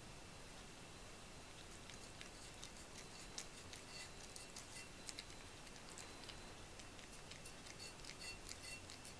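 A cat licking and chewing food off a plate: faint, irregular small wet clicks and ticks, coming more thickly in the second half.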